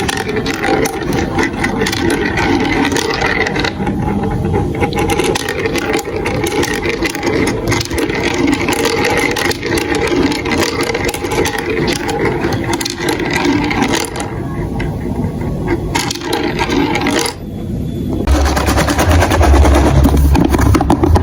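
Marbles rolling and clattering along a plastic building-block marble run, a dense, continuous rattle of small clicks that grows louder near the end.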